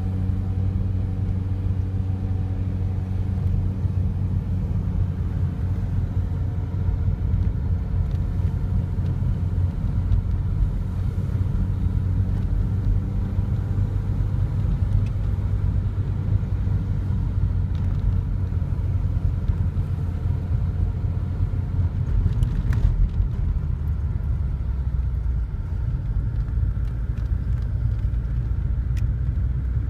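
Steady low drone of a car's engine and road noise heard from inside the cabin while driving.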